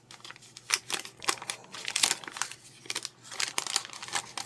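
Wax-paper wrapper of a 1983 Donruss baseball card pack being torn open and crinkled by hand, in many irregular sharp crackles.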